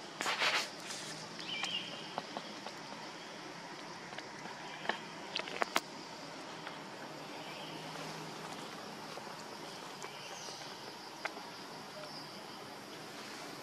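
Outdoor ambience: a steady hiss with faint chirps every few seconds, a brief rustling burst about half a second in, and a few sharp clicks in the middle and once near the end.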